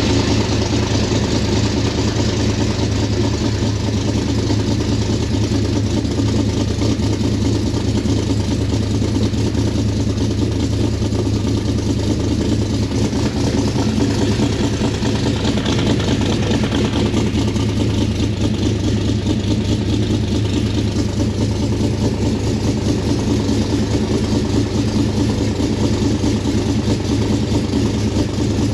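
Cobra's engine idling steadily on its newly installed Holley Sniper throttle-body fuel injection, with the idle air-fuel target just leaned out to 14.75.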